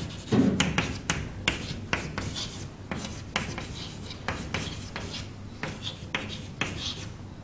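Chalk writing on a chalkboard: a quick run of short scratches and taps as words are written out by hand.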